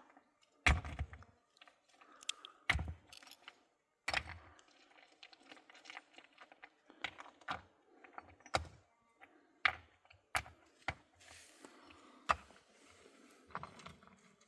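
Irregular knocks and clatter of hard objects being handled: a few heavy thuds in the first four seconds, then many lighter clicks and taps.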